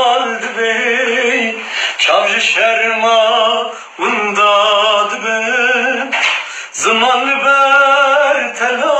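A man singing a Kurdish song in long held notes with a wavering vibrato, in four phrases with short breaths between them.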